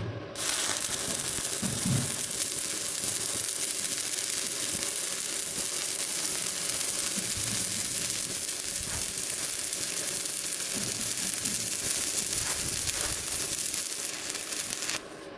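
Electric welding arc crackling and sizzling steadily as a bead is laid; the arc strikes about half a second in and breaks off near the end.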